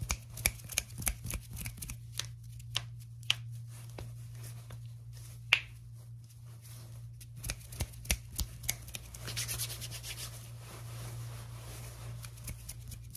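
Hands and fingers rubbing and tapping right against the microphone: many sharp clicks in the first half, then a steadier rubbing hiss in the second half. A steady low hum runs underneath.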